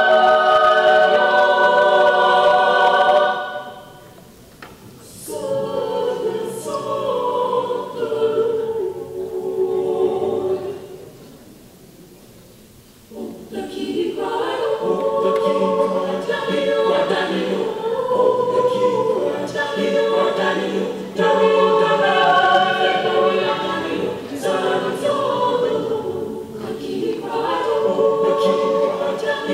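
Mixed choir singing unaccompanied. A loud held chord breaks off about three seconds in, a softer passage follows with a brief near-hush, and the full choir comes back in loudly about halfway through.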